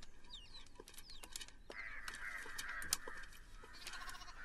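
Quiet background ambience of birds chirping in short calls, with a few light ticks scattered through it.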